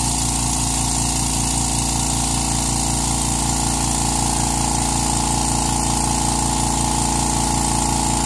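California Air Tools 2010A 1 HP oil-free dual-piston air compressor running steadily as it fills its tank, heard close to the pump's air intake. It makes a steady hum.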